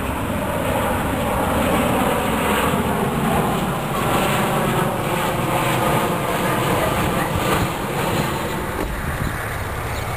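Jet airliner passing overhead, the steady engine noise with a faint whine over it.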